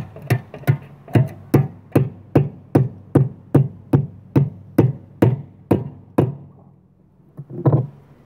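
Hand hammer striking a steel strap bracket set into a concrete chimney top. The blows are even and sharp, about two and a half a second, stop about six seconds in, and are followed by a couple more near the end.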